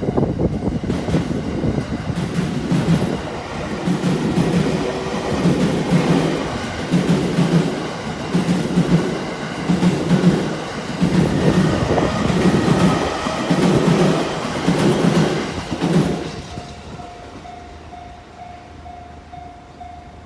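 An electric train passing close by a level crossing, its wheels clacking over the rails in a rhythm of about one beat a second. It fades out about four-fifths of the way through, leaving the crossing's electronic warning signal sounding as a steady, rapidly pulsing tone.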